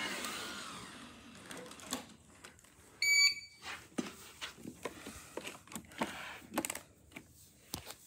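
Bissell robot vacuum gives a short electronic double beep about three seconds in, amid light knocks and handling noise.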